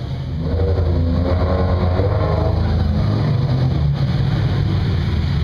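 Ferrari sports-car engines revving as the cars pull away. A low engine note rises in pitch for about the first three seconds, then settles into steady running.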